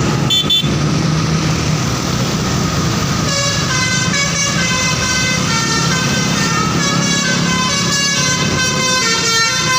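Bus telolet horn playing a melody of stepped multi-tone notes, starting about three seconds in, over the steady low rumble of the bus engine. A brief toot comes just after the start.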